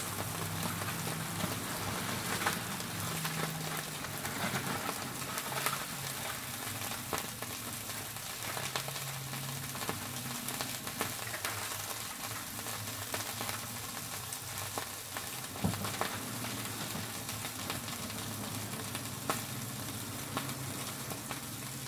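Steady sizzling hiss from a foil-wrapped tilapia grilling over a gas burner flame, with a few faint clicks and foil rustles from the foil parcel being opened with a spoon.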